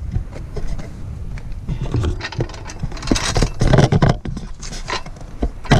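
Long floor jack being rolled and pushed into place under a pickup truck: irregular metal clanks, rattles and scraping, busiest in the middle.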